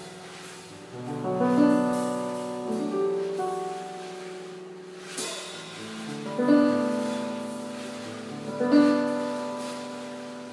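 Improvised jazz piano playing slow, ringing chords that swell about one and a half, six and a half and nine seconds in. A single light stroke from the drum kit falls about five seconds in.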